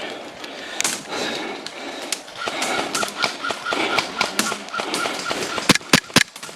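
Airsoft guns firing, with scattered sharp cracks and a quick cluster of about four louder shots near the end.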